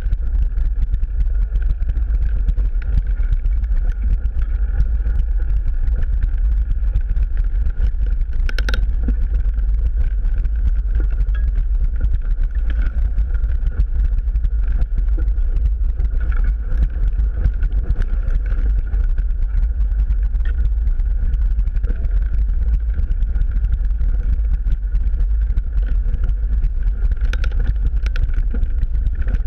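Mountain bike ridden along a dirt singletrack, heard from a handlebar-mounted camera: a constant low rumble of wind and trail vibration, with scattered clicks and rattles as the bike runs over sticks and bumps. A sharper knock stands out about a third of the way in.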